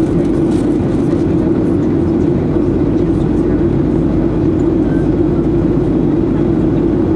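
Steady cabin noise of a Boeing 737-800 in flight, heard from a seat over the wing: CFM56 turbofan engines and rushing airflow make an unchanging hum that is strongest in the low-middle range.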